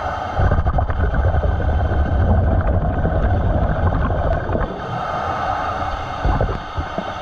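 A diver's breathing through a regulator, heard underwater. About half a second in, a long low rumble of exhaled bubbles starts and lasts to nearly five seconds. A steadier hiss of the next in-breath follows.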